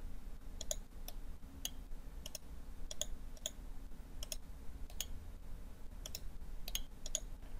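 Computer mouse clicking in irregular single clicks, roughly two a second, including right-clicks that open a context menu, over a faint steady low hum.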